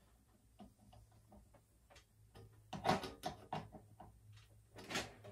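Snare wires and strainer hardware of a vintage Sonor snare drum being fitted by hand: scattered light clicks and taps, with a quick flurry of them about three seconds in and another knock near the end.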